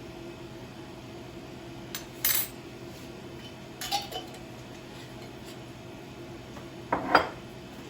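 Kitchen utensils clinking and tapping against jars and containers while dry ingredients are measured out for overnight oats: two sharp clinks about two seconds in, another around four seconds, and the loudest clatter near the end, over a steady low hum.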